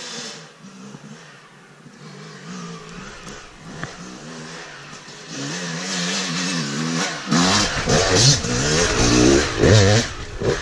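Yamaha YZ250 two-stroke dirt bike revving up and down, faint and growing louder at first, then loud and close from about seven seconds in, with sharp rev bursts as it climbs over a log.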